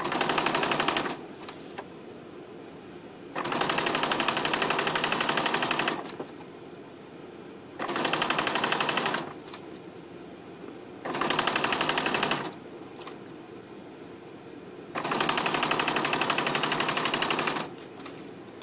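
Sewing machine stitching fast through quilt fabric in five runs of about one to three seconds each, stopping between runs.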